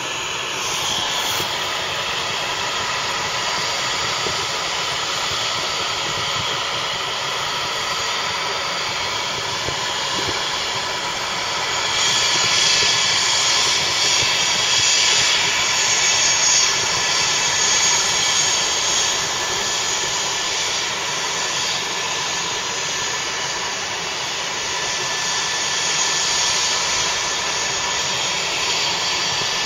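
Helicopter turbine engine running steadily on the ground: a constant whine and hiss that swells for several seconds around the middle, then settles.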